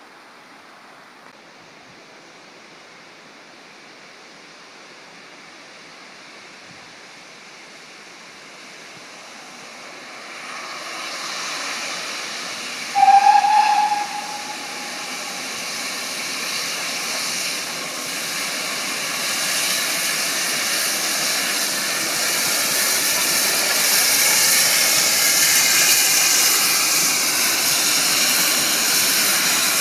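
GWR Large Prairie 2-6-2T steam locomotive 5199 approaching: the faint rush of the river gives way to the hiss of the engine working steam, which swells steadily until it is loud near the end. A little before halfway there is one short blast on the locomotive's steam whistle, about a second long.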